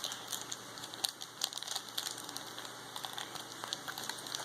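Plastic packaging crinkling in uneven crackles as a small toy package is handled and opened.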